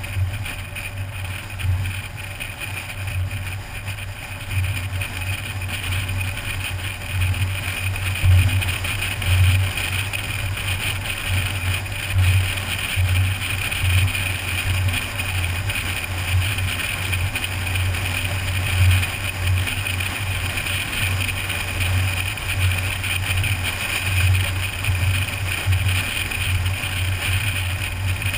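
Wind and road noise from a car driving at highway speed, picked up by a car-mounted GoPro Hero2: a low rumble that surges and drops unevenly over a steady hiss.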